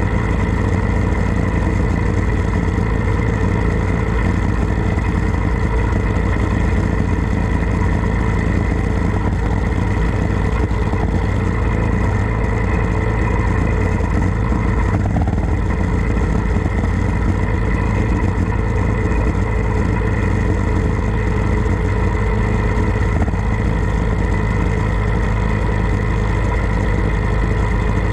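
Harley-Davidson Road Glide's V-twin engine running steadily while the motorcycle rides at an even speed, with wind rush on the camera microphone.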